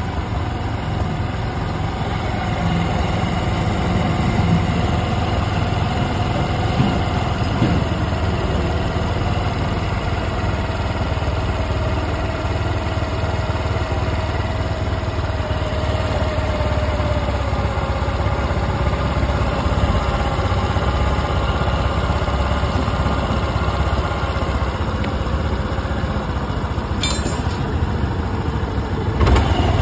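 Honda Activa's single-cylinder four-stroke scooter engine idling steadily on a newly fitted carburettor while the carburettor is adjusted with a screwdriver; the idle slowly drops. Near the end the engine gets briefly louder, with a few clicks.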